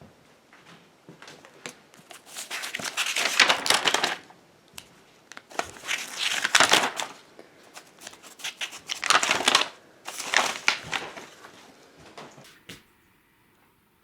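Crunching, crackling noise in four main bursts of a second or two each, with smaller crackles between.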